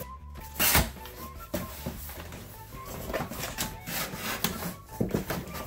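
Cardboard shipping box being handled and opened: rubbing, scraping and knocks of cardboard, the sharpest knock just under a second in, with background music playing underneath.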